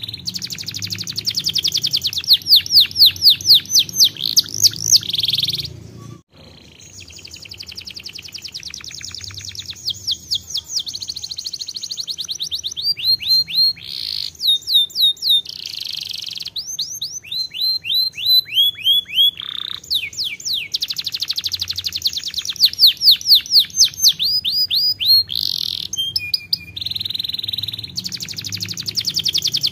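Canary singing a long, continuous song of rapid trills, each phrase a fast run of repeated sweeping notes, shifting from one trill type to the next. The song breaks off abruptly for a moment about six seconds in, then resumes.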